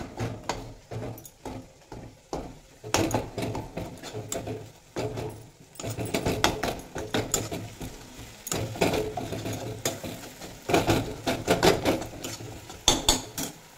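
A spatula scraping and knocking against an aluminium kadai as a tomato masala with prawns is stirred and turned. The knocks come in irregular bunches, with short lulls between them.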